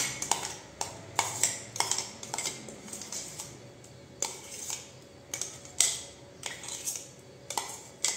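Metal spoon scraping and clinking against the inside of a stainless steel mixer-grinder jar, knocking ground pea paste out into a steel bowl: a run of irregular sharp clinks and short scrapes, two or three a second.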